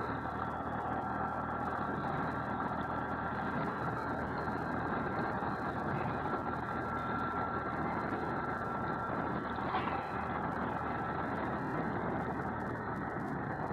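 Motorcycle riding at a steady speed: the engine running with road and wind noise, a steady, muffled drone with a faint steady whine over it.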